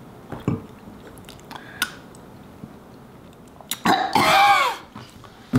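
Small sipping and mouth noises, then about four seconds in a loud, disgusted gagging noise from a person who has just tasted wine, falling in pitch as it trails off.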